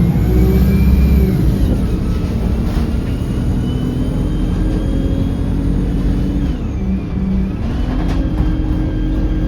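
Bus engine and drivetrain heard from aboard the bus while it is under way: a steady engine note with a high whine. About six and a half seconds in, the note dips briefly, then picks up and climbs again.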